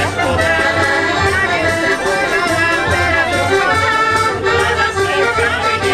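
Folk band playing traditional Polish village music led by accordion, with violin and a double bass marking a steady beat.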